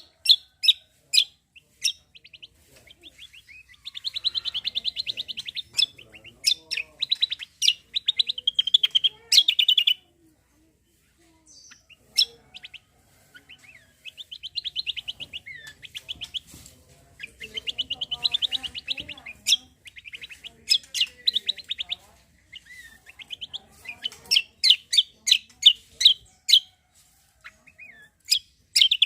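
Kecial kombo and cucak kombo songbirds singing steadily: long, fast, buzzy trills alternate with runs of sharp, quick 'shot' notes, with a short pause about ten seconds in.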